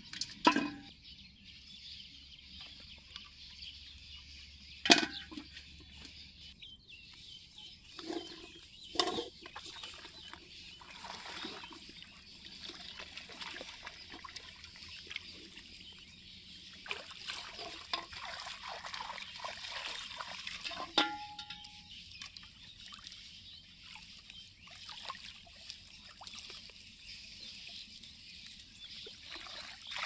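Water splashing and trickling as a person wades through a shallow, weedy pond and scoops at the water by hand, in scattered bursts. A couple of sharp knocks come near the start, the first as a plastic bottle is put into an aluminium pot. A steady high hiss runs underneath.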